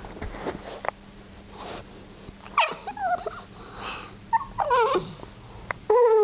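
English bulldog puppy whining in about four short, wavering cries that slide down in pitch, with breathy snuffling between them: the whine of a puppy wanting up onto a bed.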